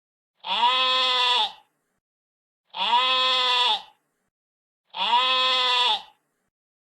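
Sheep bleating: the same call three times, each about a second long, evenly spaced about two seconds apart.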